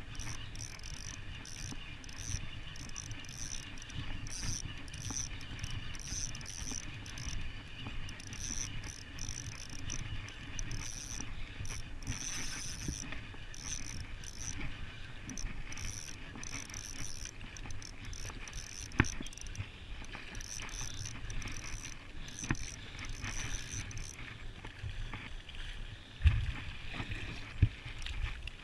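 Van Staal VS150 spinning reel being cranked steadily, its gears whirring in a pulse about twice a second as line is retrieved against a hooked striped bass. The cranking stops a few seconds before the end, followed by a few sharp knocks and a dull thump from handling the rod.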